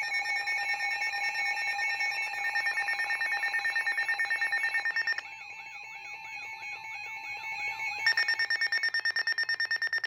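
Weather alert radios sounding their warning alarms for an incoming Severe Thunderstorm Warning: fast pulsing beeps layered over steady tones. About five seconds in the beeping drops to a quieter warbling tone, and the loud pulsing beeps return about three seconds later.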